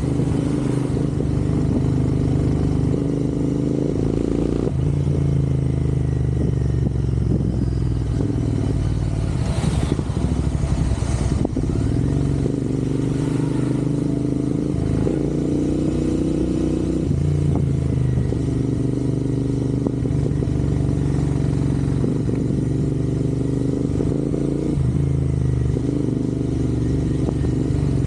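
Royal Enfield Interceptor 650's parallel-twin engine running while riding, its pitch shifting in steps every few seconds as the revs change, with a couple of brief clicks about ten seconds in.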